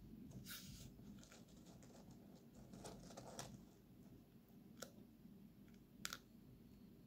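Faint scratches and clicks of a small turtle's claws on the smooth floor of a plastic tub: a few short scrapes, then a sharp click near the end that is the loudest.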